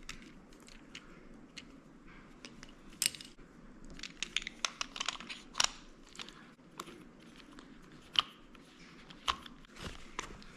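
Irregular light clicks and taps of small baitcaster reel parts being handled and fitted during reassembly, with a busier cluster of clicks midway.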